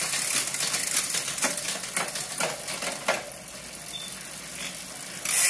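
Chain running over the cassette, chainrings and derailleurs of an XDS Romance 700 mountain bike's Shimano SLX 30-speed drivetrain as the crank is turned by hand with the rear wheel spinning free. Rapid ticking with a few louder clicks, easing after about three seconds into a quieter whir.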